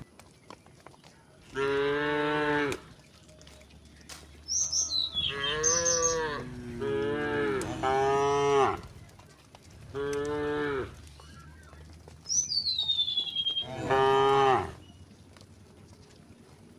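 Several cows mooing one after another, about six long moos with short pauses between them. A high falling whistle is heard twice, about four seconds in and again about twelve seconds in.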